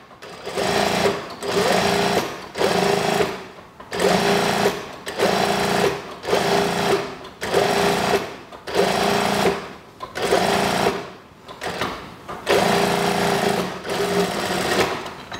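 Brother industrial sewing machine stitching through cloth in about a dozen short runs of roughly a second each. The pitch rises as the motor speeds up at the start of each run, with brief pauses between runs while the fabric is guided.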